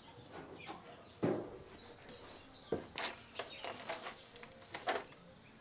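A hand rummaging through dry black soldier fly larvae in a plastic tub: faint, scattered rustles and scratches, thickest about three to four seconds in.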